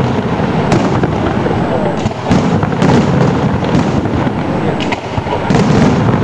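Aerial firework shells bursting in a display: a series of sharp bangs, roughly one a second, over a continuous rumble and crackle of other bursts.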